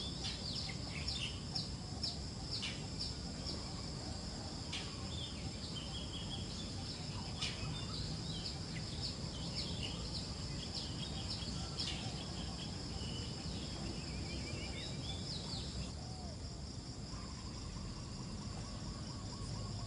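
Insects trilling steadily at a high pitch, with many short bird chirps over a low background rumble; the chirps thin out near the end.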